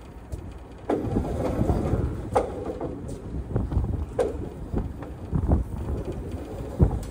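Wind buffeting the microphone with a steady low rumble, over rustling and a few sharp knocks as a worker climbs into and moves about a trailer loaded with square hay bales.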